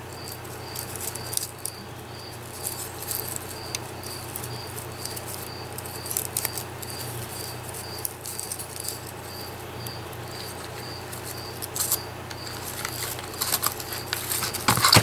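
Dried flower stems and paper being handled and pressed together: scattered soft rustles and crackles. A faint high tick repeats about twice a second.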